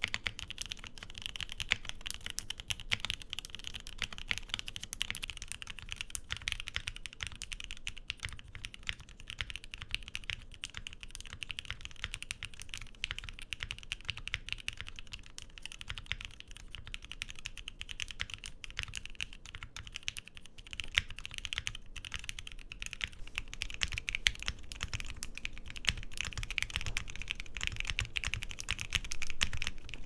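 Continuous typing on a Bakeneko65 mechanical keyboard with Lavender linear switches, a keycap sound comparison. It starts on Cherry-profile GMK ABS keycaps, switches about five seconds in to CXA keycaps, an ABS-PBT blend whose pitch sits between ABS and PBT caps, and ends on Cherry-profile NICEPBT PBT keycaps, where the typing gets louder.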